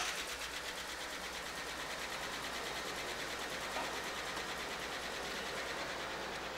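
Rolls-Royce Corniche's 6.75-litre V8 idling steadily with a fast, even pulse.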